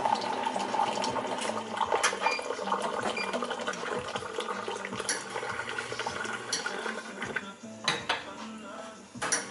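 Metal clicks and clanks of espresso preparation: a portafilter being tamped, handled and locked into the espresso machine's group head. There are scattered small knocks throughout, and sharper ones about eight seconds in and again near the end.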